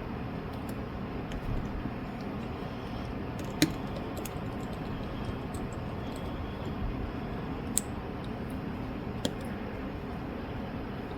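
Small sharp clicks and ticks of a precision screwdriver, tweezers and tiny screws against the phone's metal brackets as its covers are being put back on. A handful of scattered clicks, the clearest three about three and a half, eight and nine seconds in, over a steady low hum.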